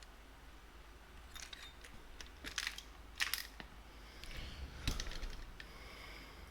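Small metal clicks and clinks of a magnetic-bit driver and wheel bolts being worked into the rear wheel hub of an RC drag bike, a few sharp ones scattered through, the loudest about three seconds in and again about five seconds in.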